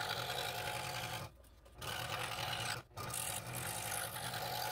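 Scroll saw running with its fine blade cutting through a thin piece of hardwood. The sound drops out briefly twice, about a second and a half in and again near three seconds.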